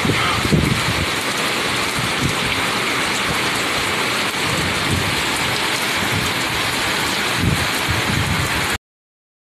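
Heavy tropical-storm rain pouring down steadily, with a few low swells, until it cuts off suddenly near the end.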